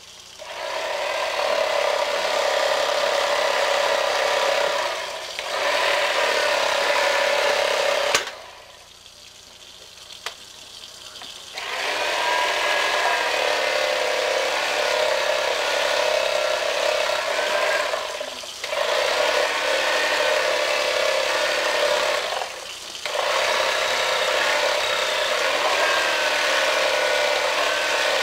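Motor of a small corded handheld electric tool working on a fish, a steady whine that wavers in pitch as it meets resistance. It cuts out for about three seconds a third of the way in and dips briefly a few other times.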